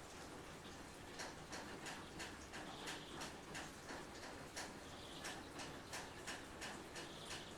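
Raindrops dripping and ticking irregularly on a nearby surface, a few drops a second, over a faint steady hiss of rain. A short high bird note repeats about every two seconds.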